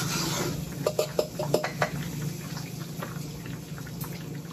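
Wooden spatula stirring a thick, creamy tomato vodka sauce in a nonstick pan, with wet squelching and a few light knocks against the pan in the first two seconds, over a steady low hum.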